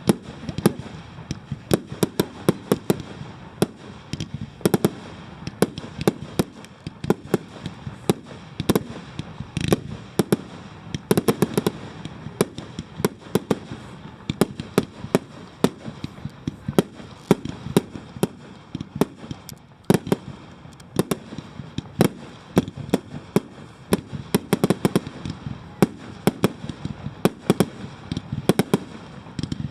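Fireworks display: many sharp bangs and pops in quick, irregular succession, bunching into dense clusters at times.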